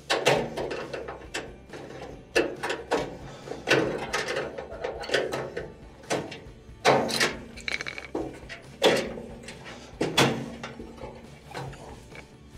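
Push-on wire terminals being pulled by hand off the thermostat and thermal fuse of an electric dryer's heater assembly: a series of sharp metal clicks and short rattling scrapes, the loudest about every second or two.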